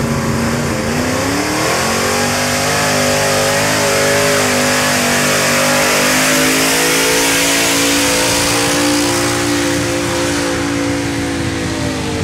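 Pickup truck engine running hard under full load while pulling a weight-transfer sled; the revs climb about a second in, hold high and steady, then begin to drop near the end.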